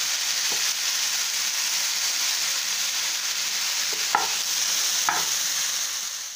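Onions and boiled sweet potato chunks sizzling steadily in hot oil in a frying pan, while a wooden spatula stirs them, scraping the pan a few times.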